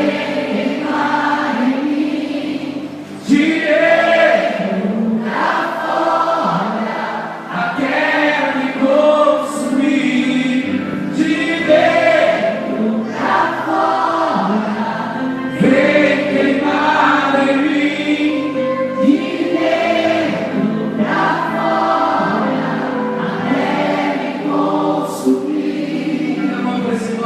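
Congregational worship singing: voices of men and women singing a Portuguese gospel song together over instrumental accompaniment.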